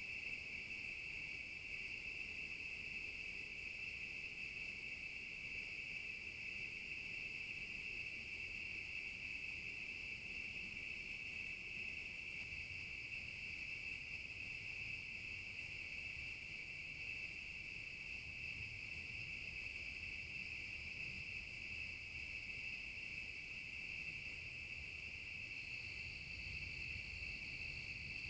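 Continuous night chorus of crickets, a steady high-pitched trill with a fainter, higher insect band above it.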